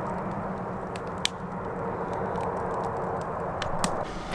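Campfire crackling: a steady low rush with a few sharp pops. The background changes abruptly near the end.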